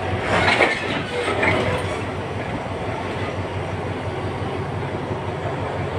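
Passenger train coaches being shunted, rolling slowly past the platform over the rails, with a steady low drone throughout. A short, louder, higher sound comes about half a second in, and a smaller one about a second and a half in.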